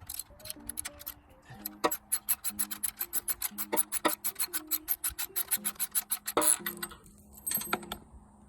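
Ratchet wrench clicking rapidly and evenly, about nine clicks a second, as a bolt is worked on the motorcycle. It starts about two seconds in and stops after about four and a half seconds.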